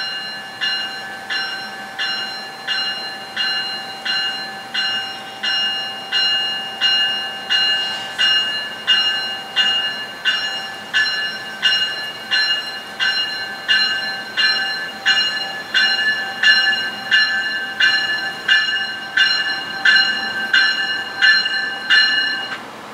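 A train's warning bell ringing steadily, about three strikes every two seconds, over a steady high tone, as a MARC commuter train approaches the station; the ringing stops just before the end.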